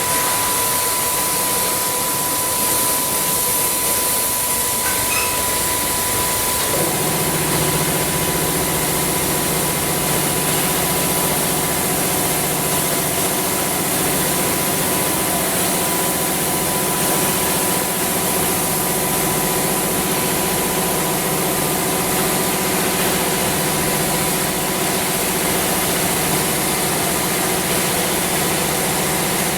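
Automatic car wash machine running a wash cycle: a steady hiss of spraying, with a motor or pump starting about seven seconds in and then humming at a steady pitch.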